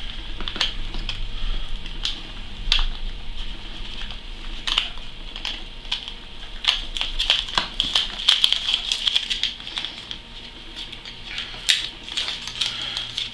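Masking tape being peeled off the freshly painted plastic frame of an 80 mm case fan and crumpled: irregular crackling with sharp ticks throughout.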